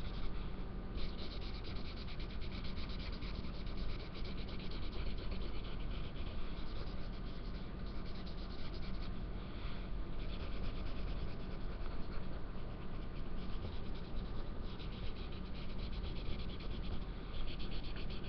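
Felt-tip marker scribbling on paper: fast back-and-forth scratchy strokes colouring in an area, with a few brief pauses.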